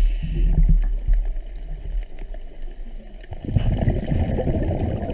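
Muffled underwater noise picked up by a diver's camera: a knock and low rumbling at first, then from about three and a half seconds in a gurgling, crackling rush of scuba exhaust bubbles from the diver's regulator.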